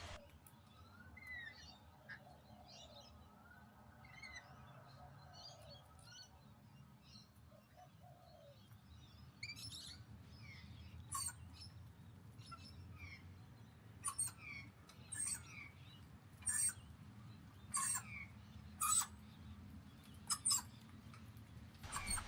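Wild birds chirping and calling: faint short chirps and little rising whistles at first, then, from about halfway, louder sharp calls roughly once a second.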